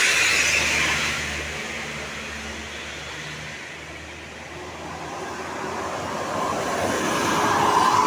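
Road traffic passing close by: one vehicle's tyre and engine noise fades away after the start, and a second vehicle approaches, loudest near the end.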